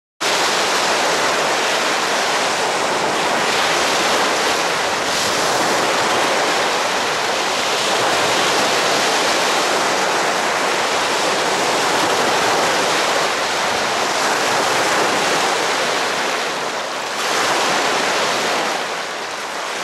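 Choppy, wind-driven waves breaking and washing onto a pebble shore as a loud, steady rush, with wind buffeting the microphone.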